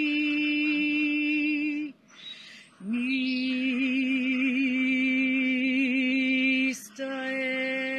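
A woman singing galdr, the Scandinavian runic chant: three long held single tones with a wavering vibrato, broken by a breath about two seconds in and a short catch of breath near the end.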